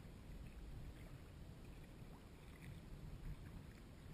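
Quiet kayak paddling on calm water: faint splashes and drips from the paddle blade, the clearest about halfway through, over a steady low rumble.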